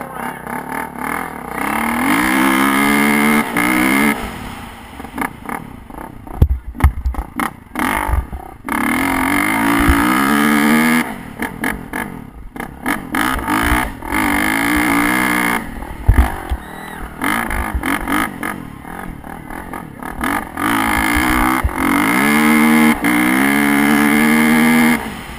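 Dirt bike engine revving hard, its pitch climbing with each burst of throttle and falling away between them, about five or six times, during a barrel-racing run. Low thumps of wind buffet the helmet-mounted microphone.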